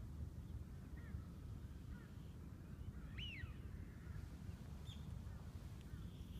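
Faint bird calls: a few short chirps, then one clearer call about three seconds in that rises and falls, over a low steady rumble.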